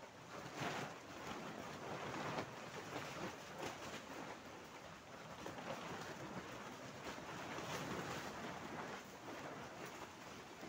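Wind through a torn plastic greenhouse cover, the loose polyethylene sheets rustling and crackling unevenly, with gusts rising and falling.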